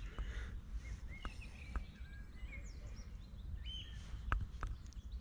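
Small birds chirping over steady wind rumble on the microphone, with a few sharp clicks, the loudest about four seconds in.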